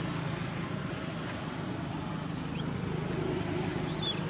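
Steady outdoor background noise with a low hum, and brief high chirps a little under three seconds in and again near the end.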